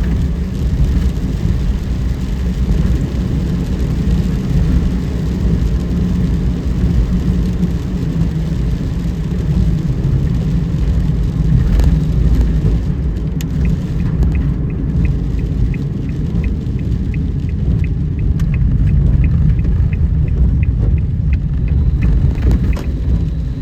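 Car driving on a wet road, a steady low road and tyre rumble heard from inside the car. About halfway through, a regular light ticking starts, about two ticks a second, and stops shortly before the end.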